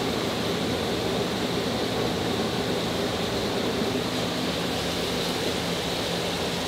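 Steady rushing noise of commercial kitchen ventilation, with a faint low hum under it.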